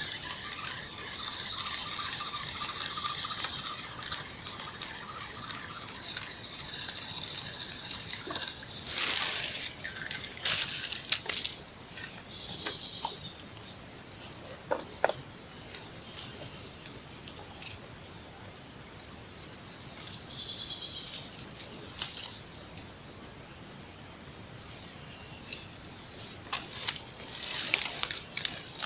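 Insects chirring outdoors: a steady high drone runs under repeated buzzy calls of a second or two each, coming every few seconds. A few brief louder noises come around the middle and near the end.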